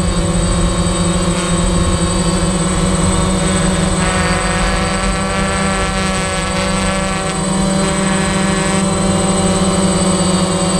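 Small multirotor drone's motors and propellers running steadily as it hovers and drifts, heard close up through its own on-board camera microphone, a multi-tone whine whose pitch shifts slightly a few times.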